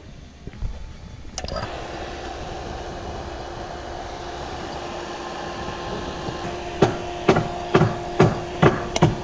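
Refrigeration vacuum pump switched on to evacuate a heat pump line set: it starts abruptly about a second and a half in and runs with a steady hum. Near the end, a run of regular knocks, about two a second, sounds over it.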